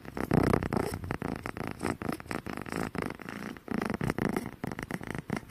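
Kitten purring right at the microphone, a rough, rasping purr that comes in uneven surges.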